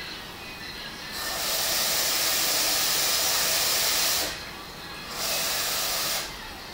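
Kitchen tap running into a sink: a steady hiss of water turned on about a second in for about three seconds, shut off, then run again for about a second near the end.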